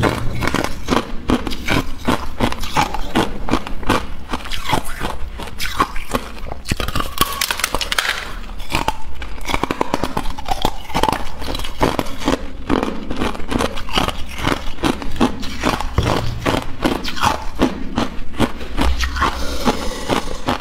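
Hard clear ice being bitten and chewed close to a clip-on microphone: a rapid, continuous run of sharp crunches and cracks.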